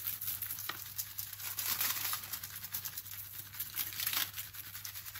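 Dry French onion soup mix shaken from its packet onto a foil-lined baking tray: the packet crinkling and the dry granules pattering onto the foil in small irregular rustles.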